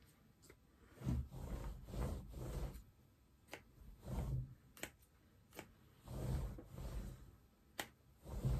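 Sharp scissors trimming the cloth-strip pile of a proggy rag mat: a few crisp snips scattered among repeated rustling and brushing of the fabric strips as the pile is ruffled.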